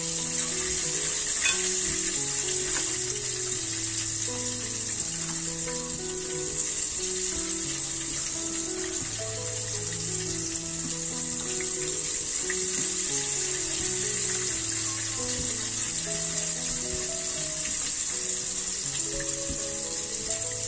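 Background instrumental music, a slow melody of held notes, over a steady high hiss.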